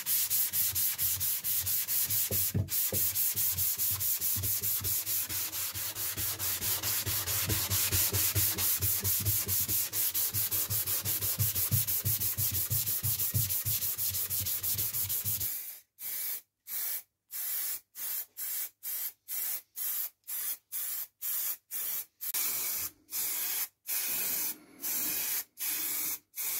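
A sanding sponge rubbed by hand over a sheet-metal gumball machine body in quick, steady back-and-forth strokes. About 16 seconds in, this gives way to short separate bursts of hiss from an aerosol spray-paint can.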